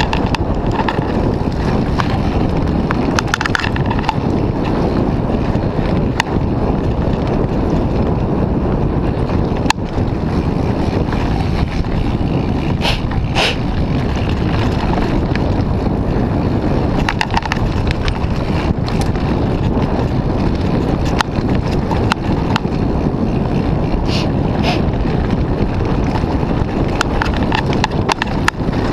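Wind rushing over the camera microphone and the rumble of knobby tyres on a dirt trail, from a Moots Mooto-X RSL mountain bike descending at speed. Scattered clicks and rattles come as the bike jolts over the rough ground.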